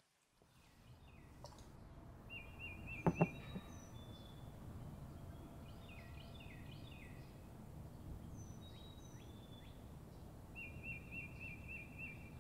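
Outdoor street ambience with a steady low hum, and small birds chirping and trilling. Two sharp clicks come about three seconds in.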